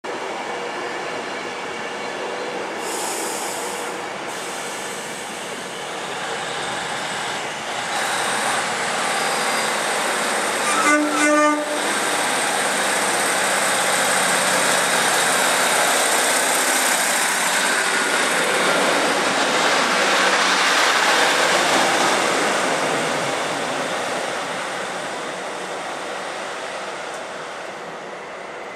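Class 156 Sprinter diesel multiple unit pulling away from the platform, its underfloor Cummins diesel engines running up as it accelerates; the noise builds, then fades as the train draws off. A short horn sounds about eleven seconds in.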